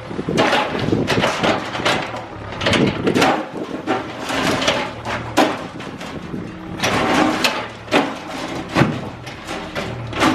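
Cat 305E2 mini excavator demolishing a building of gunite and rebar: repeated irregular crashes, knocks and scrapes of breaking concrete and steel, over the steady run of the machine's engine.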